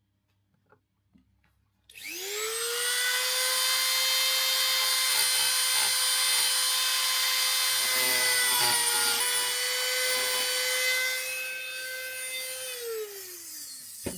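A small high-speed rotary tool spins up about two seconds in, runs at a steady high whine with brief wavers as it works on the reel's worn main plate, then is switched off and winds down near the end.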